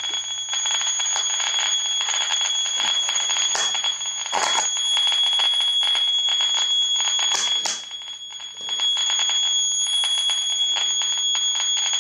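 Loudspeaker driven by a Brüel & Kjær Type 2706 power amplifier, playing a steady high-pitched test tone with crackling and clicking running through it. The crackling is blamed on the cheap little oscillator feeding the amplifier. The level dips briefly a little past halfway.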